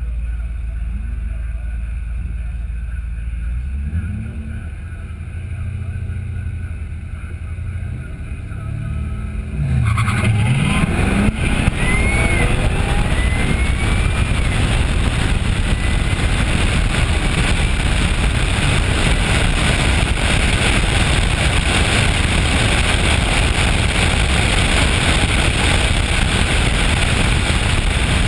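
Cadillac CTS-V's V8 rumbling low at idle on the drag-strip line, then about ten seconds in launching hard and revving up through the gears with rising pitch. After that comes a loud, steady rush of engine and wind noise on the side-mounted camera as the car runs down the strip.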